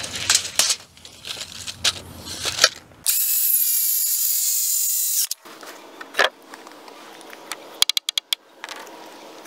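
A few knocks and clicks of handling, then a power circular saw crosscutting a timber board for about two seconds, stopping abruptly. Later there is a quick run of sharp clicks.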